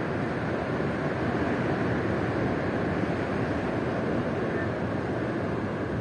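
Steady rushing noise of ocean surf and wind, even in level with no separate events.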